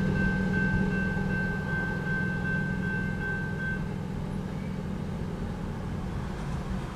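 Railroad crossing bell ringing steadily, cutting off about four seconds in, over the low rumble of a departing empty ore train fading away.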